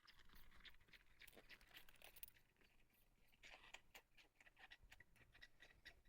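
Near silence with faint scattered clicks, taps and rustling.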